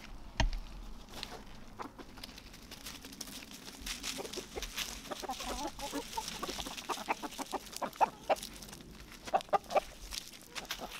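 A flock of backyard chickens clucking, short separate calls that grow busier in the second half, with a single knock about half a second in.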